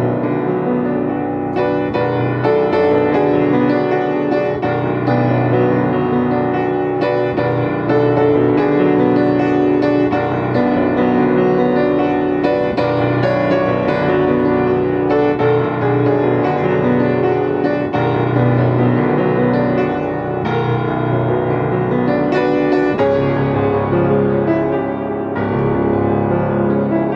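Yamaha C-7 grand piano, tuned to A=443 Hz, played solo in a continuous flowing passage of many overlapping notes that ring on, at an even, fairly full volume.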